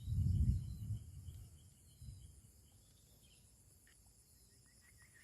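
Insects, crickets among them, shrilling steadily at a high pitch, with a quick series of small repeated chirps through the first few seconds. A brief low rumble on the microphone in the first second is the loudest sound.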